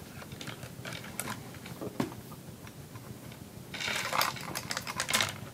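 A long decorative statue chain clinking as it is threaded and dragged around the statue base: scattered light clinks, then a denser rattle of links from a little under four seconds in.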